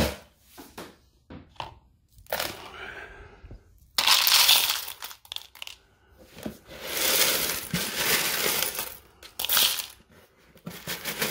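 Small memory BGA chips clattering into a plastic bowl, in several spells of rattling with short pauses between.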